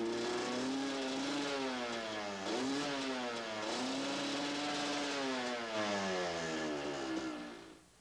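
Honda two-stroke motorcycle engine being revved, its pitch rising and falling several times with two quick blips, then dropping away and dying out just before the end. The revs climb freely with the HPP exhaust valves freshly decarboned, and the HPP system is working properly.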